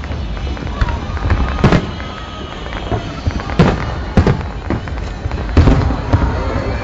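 Aerial fireworks bursting: a string of sharp bangs at irregular intervals, several of them loud, over a continuous low rumble of shells going off.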